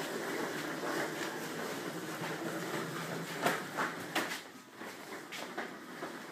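Plastic baby push walker rolling fast across a hardwood floor, its wheels making a steady rumble. About three and a half seconds in come a few sharp knocks and clatters, and then the rolling quietens.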